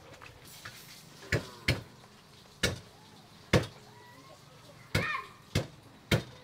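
Seven sharp knocks at uneven intervals, like blows on wood, with faint bird calls between them.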